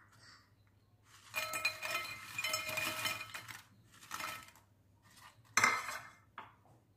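Crisp fried potato twists poured from a ceramic serving dish into a porcelain bowl, clattering and clinking against the bowl with a ringing tone for about two seconds. A shorter rattle follows, then a sharp clack of crockery near the end.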